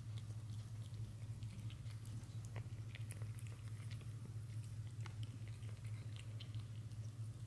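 Cat eating soft tuna off a plate: quick, irregular small wet clicks and smacks of chewing and licking, over a steady low hum.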